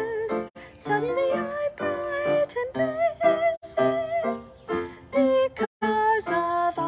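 A woman singing a slow song, holding notes with vibrato, over instrumental accompaniment.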